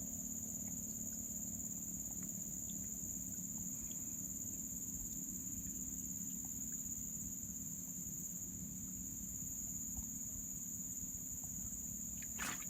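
Steady high-pitched chorus of crickets or similar insects, with a low steady hum underneath.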